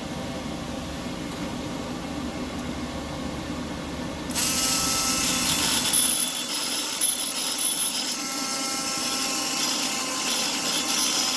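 A steady hum, then, about four seconds in, a harsh, continuous scraping starts as rust is cleaned off an ignition coil.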